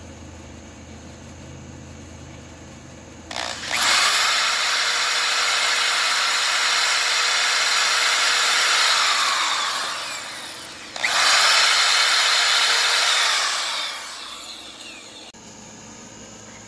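Corded electric drill boring pop-rivet holes through aluminium angle and plastic sheeting: two runs, the first about six seconds and the second about three, the motor winding up at the start and down at the end of each.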